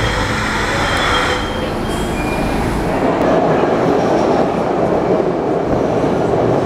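SEPTA Broad Street Line subway train moving through the station: a steady rumble of wheels on rail that grows louder about three seconds in, with a few thin, high wheel-squeal tones in the first second or so.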